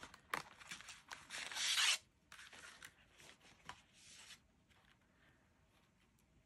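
Cardstock cards sliding and rubbing against each other as a card is drawn off a stack and laid down, then opened: a papery rustle, loudest about a second and a half in, then softer scrapes and light taps that die away after about four seconds.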